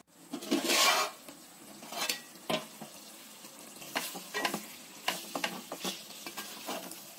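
A spatula stirring chicken pieces in thick masala in an aluminium pot, with a low sizzle and scattered scrapes and clicks against the pot's side. It opens with a brief loud rush about half a second in, as the aluminium plate covering the pot is lifted off.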